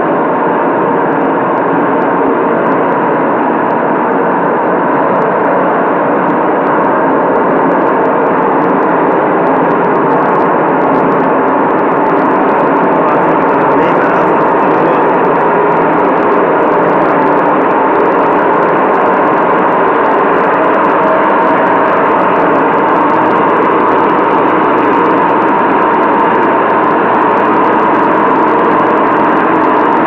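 An LG 8 kg front-loading washer-dryer's drum turning in test mode with a loud, steady roar from worn drum bearings, a terrible sound. The bearings are failing and need replacing, and running the machine like this can damage the drum spider and crack the outer tub.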